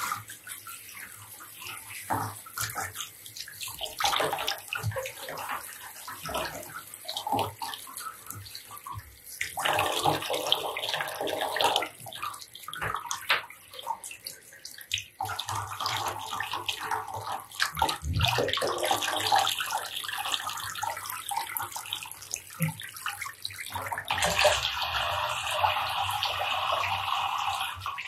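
Handheld shower head spraying water onto a wet cat's fur and into shallow bathwater, running in spells, loudest near the end, with small splashes and drips between the spells.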